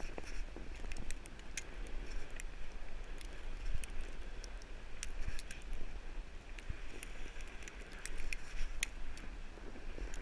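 Sled sliding fast over snow: a steady scraping hiss of the snow under the sled, with many scattered clicks and crackles and a constant low rumble.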